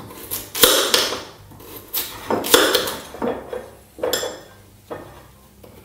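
Kitchen knife cutting a raw potato into pieces on a china plate: about six separate strokes, each a sharp clink of the blade meeting the plate with a short scrape after it.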